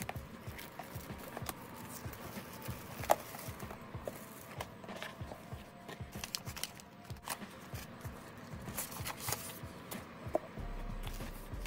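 Soft background music with scattered clicks, taps and scrapes of packaging being opened and handled, one sharper click about three seconds in.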